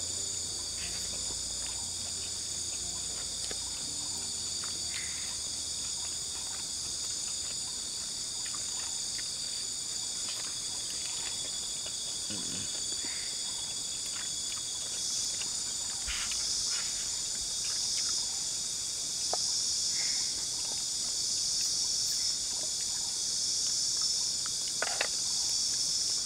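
Steady, high-pitched night chorus of forest insects. About halfway through, a slow pulsing call joins it. Faint small clicks and rustles come from eating by hand off a leaf plate.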